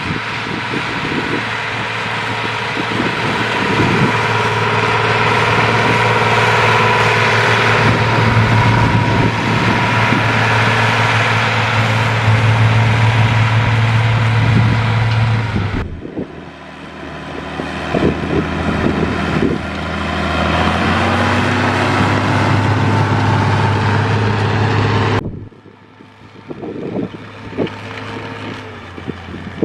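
Vintage tractor engine running steadily. The sound breaks off abruptly and changes about halfway through and again near the end, as the footage cuts between shots.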